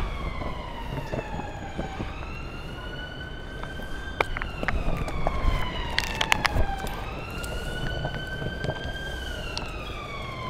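Emergency vehicle siren wailing, its pitch rising and falling slowly about every three seconds. Under it runs the low rumble of longboard wheels on paving slabs, with sharp clicks as they cross the joints.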